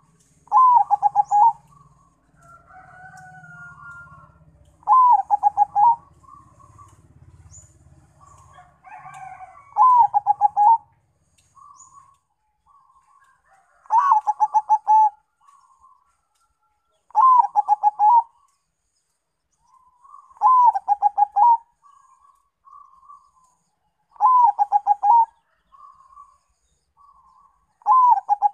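Local-Bangkok cross zebra dove (perkutut) singing: a loud run of quick staccato coos, repeated about every three to four seconds, with softer single coos between the runs.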